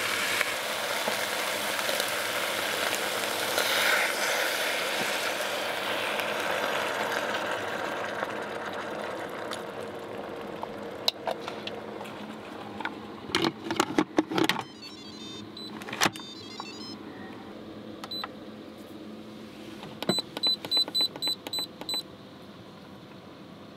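Instant Pot electric pressure cooker being set up: the lid clanks and knocks shut, then its control panel gives a quick run of about seven short beeps as the buttons are pressed, and one more beep near the end. A steady rushing noise fills the first few seconds and fades away.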